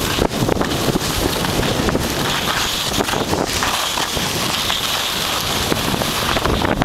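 Wind buffeting the microphone of a camera carried by a moving skier, over the steady hiss and scrape of skis on packed, groomed snow. The scraping comes and goes in short irregular rasps.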